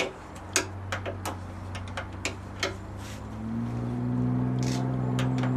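Irregular sharp clicks and taps of hand tools on metal as a turn signal's mount and ground cable are fastened. About three seconds in, a steady low hum comes in and grows louder.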